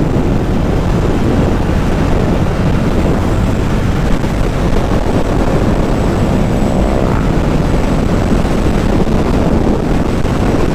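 Motorcycle engine running steadily at cruising speed, with heavy wind rush on the helmet microphone.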